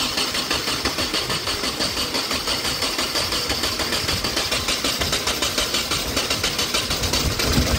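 Nissan KA24DET four-cylinder being cranked over by its starter in an even, rapid chug, with a heavier low pulse near the end. The engine is hard to start, which the builders later think may be partly down to oversized 750cc injectors running it rich.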